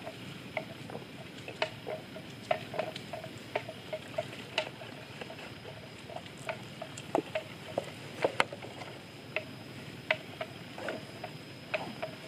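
Water buffalo grazing: irregular crisp ticks and snaps, several a second, of grass being torn and chewed, over a faint steady high tone.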